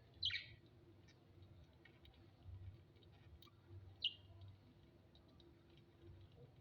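Two short high chirps from a small pet bird, one just after the start and one about four seconds in, each sliding down in pitch, with faint scattered clicks between them.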